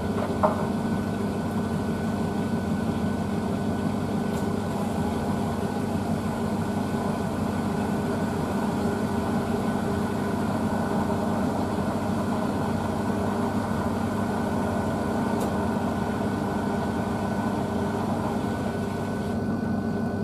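Blomberg WNF9448 front-loading washing machine running its final spin: the drum spins the load steadily with a constant motor hum. A brief click about half a second in.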